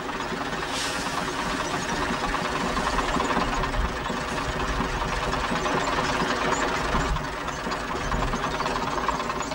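Farm machinery engines running steadily at an even pitch, from a telehandler and tractor working close by. A brief hiss comes about a second in.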